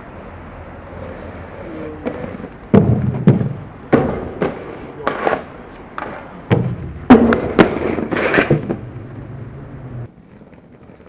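A skateboard rolls with a steady low rumble, broken by a run of sharp clacks and slaps of the board: pops, landings and the deck hitting the ground, about nine in all, starting about three seconds in. The rolling rumble cuts off abruptly near the end.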